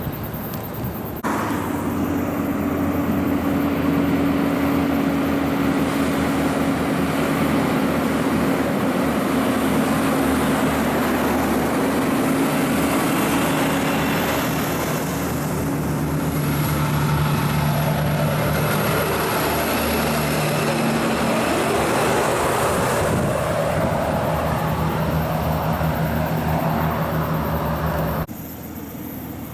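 Diesel engine of a loaded logging truck and trailer running as it passes close and pulls away up the road: a loud, steady drone whose low note steps in pitch a few times. The sound starts abruptly about a second in and drops off abruptly near the end.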